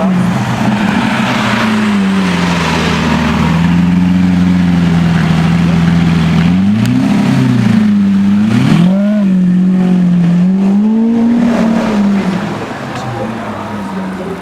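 Lamborghini Aventador's V12 engine running loud as the car drives by. The pitch holds steady for a few seconds, then revs up and down several times. The sound fades about twelve seconds in as the car moves away.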